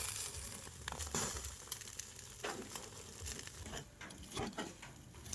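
Rustling and crinkling handling noises with scattered clicks and knocks over a steady background hiss.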